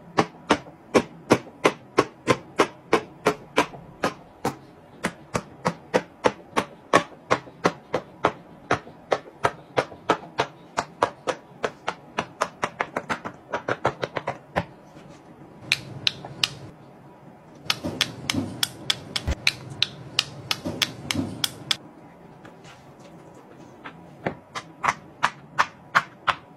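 Bubbles of a silicone pop-it fidget toy being pushed through one after another, a sharp pop about three times a second, with a couple of short breaks and slower, sparser pops near the end.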